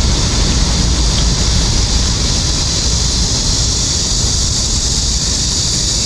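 Steady outdoor background noise: a low, fluctuating rumble under a constant high hiss, with no distinct events.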